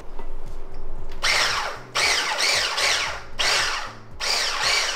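Handheld electric stick blender with a whisk attachment whisking pancake batter in a stainless steel bowl. The motor whirs, and from about a second in there are louder bursts lasting a second or two, with short breaks between them.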